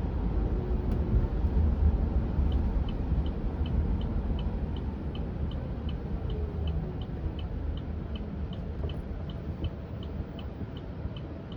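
Cabin sound of a Chevrolet Bolt EV robotaxi rolling on wet pavement: a steady low road and tyre rumble. A few seconds in, the turn-signal indicator starts ticking evenly at about three ticks a second, and a faint whine falls in pitch midway.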